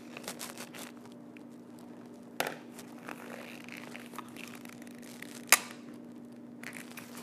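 Soft rustling and small handling noises from backdrop painting work, with two sharp clicks, one about two and a half seconds in and another about three seconds later. A steady low hum runs underneath.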